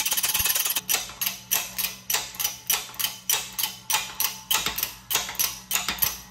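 Hydraulic shop press being worked in quick, even strokes, about three a second, each stroke short and sharp, as it pushes a bearing by its inner race onto the overdrive's cone clutch hub until it seats.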